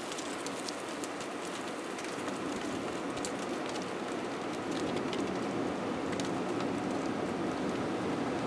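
Steady rolling noise of a slow-moving vehicle's tyres on asphalt, with scattered sharp crackles of twigs being crushed under the tyres, growing slightly louder toward the end.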